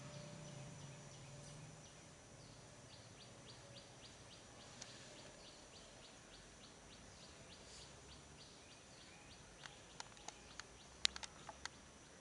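A small bird chirping over and over, a few short high chirps a second, in quiet surroundings. Near the end comes a cluster of sharp clicks and light taps, the loudest about eleven seconds in.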